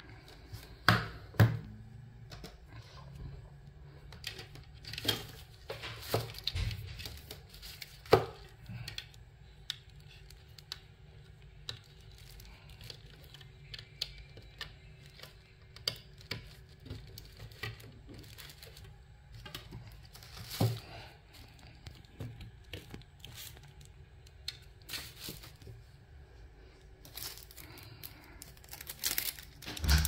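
Handling noise from unboxing a small appliance: paper and plastic packaging rustling and crinkling, with scattered sharp clicks and knocks as plastic parts and a cable are picked up and set down on a table.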